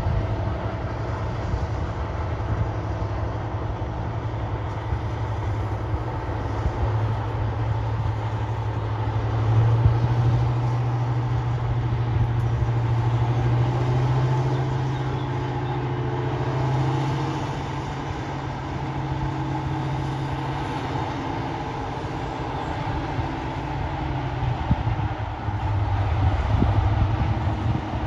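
Class 55 Deltic diesel locomotive running with a steady low engine drone as it moves slowly closer, swelling a little about ten seconds in and again near the end.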